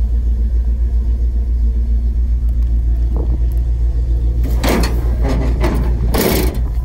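Ford 460 big-block V8 idling with a steady, pulsing low rumble. From about four and a half seconds in, rustling noise comes over it for about two seconds.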